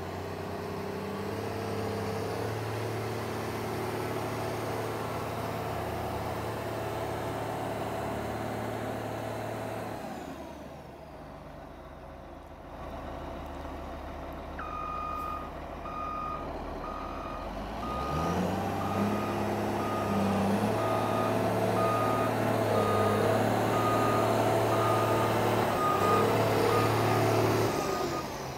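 Cat 140H motor grader's six-cylinder diesel engine running as the machine drives, easing off about a third of the way in. Its reversing alarm then beeps about once a second while the engine revs up and pulls louder, loudest near the end.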